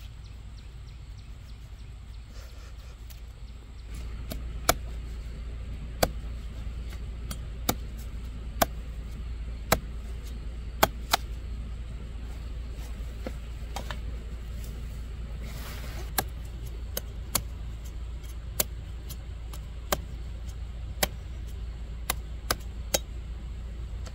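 Sharp, separate knocks, roughly one a second at uneven spacing with a pause in the middle, over a steady low rumble that grows louder about four seconds in.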